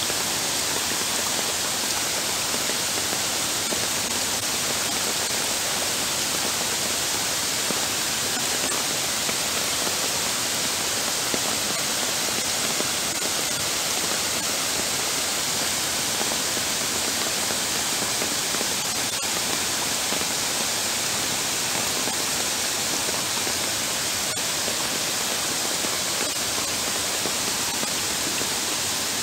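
Torrential rain and floodwater running over a paved walking path: a steady, even hiss of water that does not let up.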